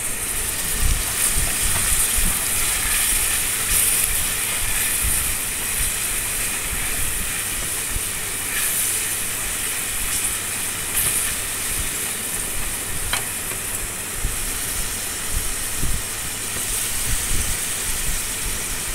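Sliced onions and garlic paste sizzling steadily in oil in an aluminium kadhai over a gas flame, with occasional knocks and scrapes of a wooden spoon stirring them against the pan.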